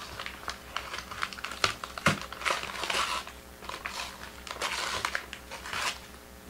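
Packaging crinkling and rustling by hand, with irregular small clicks and taps, as a box of trading cards is opened and its contents handled.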